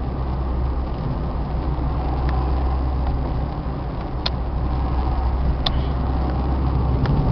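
Car cabin noise while driving on a rough road: a steady low rumble of engine and tyres, with a few sharp clicks scattered through it.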